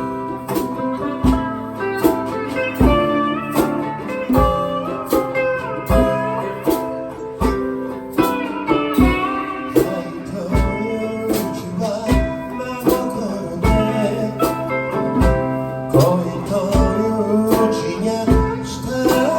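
Live band playing a blues song between sung lines, guitar to the fore over a steady drum beat.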